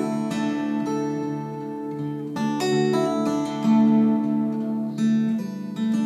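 Steel-string acoustic guitar played fingerstyle in open CGCGCD (C sus 4) tuning with a capo: a plucked melody over low bass notes that keep ringing.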